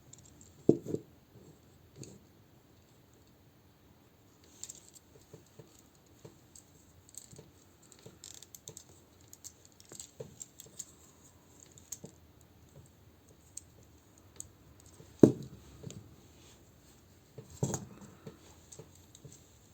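Scattered small clicks and taps of hard plastic toy parts being handled and fitted, with a few sharper clicks; the loudest comes about fifteen seconds in.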